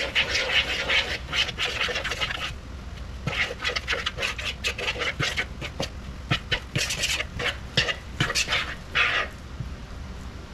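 Thick oyster fritter batter being stirred and worked in a plastic mixing bowl: irregular wet scraping and squelching in several runs of a couple of seconds each, over a low steady hum.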